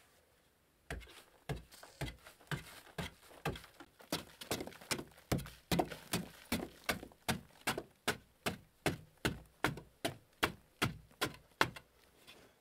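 A long-handled digging tool chopping into a hard-packed earth wall to cut out a niche: a steady run of dull thuds, about two a second, starting about a second in and stopping shortly before the end.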